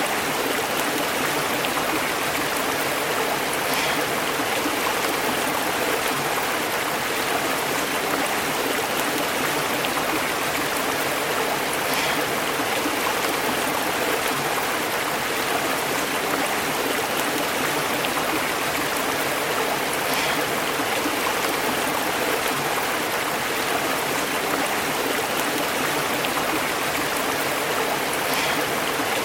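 A stream burbling and bubbling over rocks: a steady, even rush of flowing water.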